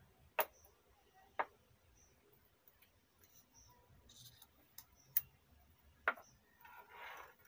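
Light handling noise from a twisted pair of wires being worked by hand: a few sharp, well-spaced clicks and a brief scraping rustle near the end.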